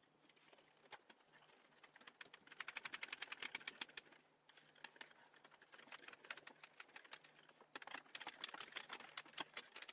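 Rapid ratcheting clicks from a hand screwdriver driving screws into the particleboard bookcase. The clicks come in runs of a second or two with short pauses between, the busiest about three seconds in and again near the end.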